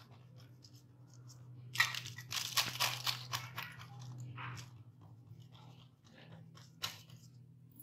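Butter paper crinkling and rustling under the palms as a ball of maize-flour dough is pressed flat on it, with a cluster of crackles about two to three seconds in, over a steady low hum.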